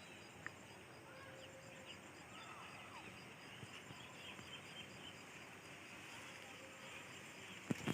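Faint outdoor ambience with scattered small bird chirps and short whistles. Two sharp knocks near the end, the loudest sounds here, like the phone being handled.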